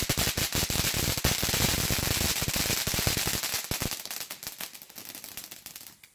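Black Cat Citrus Fountain, a ground fountain firework, spraying sparks with a loud hiss and rapid crackling. It fades over the last couple of seconds and stops near the end.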